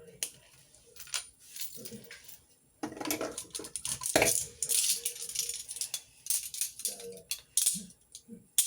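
Metal handcuffs being handled, their chain and cuffs rattling and clinking with sharp metallic clicks, much busier from about three seconds in.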